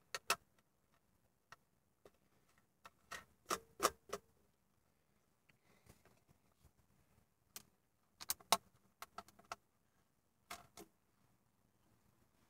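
Scattered light clicks and taps in small clusters: screws and plastic trim of a car's center console being handled and fitted back in by hand.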